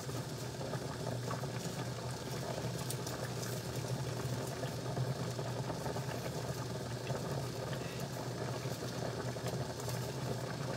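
Soup boiling in a wok on the stove, under a steady low hum.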